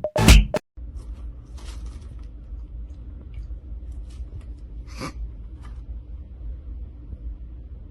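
Quiet room sound: a steady low hum with a few faint ticks and rustles, and one sharper click about five seconds in.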